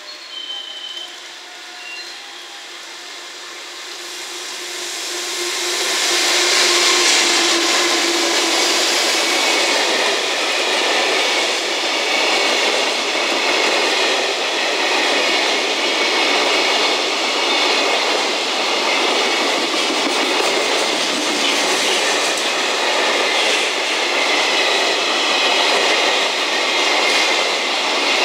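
JR Freight EF210 electric locomotive approaching and passing, its sound building over the first six seconds, then the wagons of a long container freight train rolling steadily past, steel wheels running on the rails.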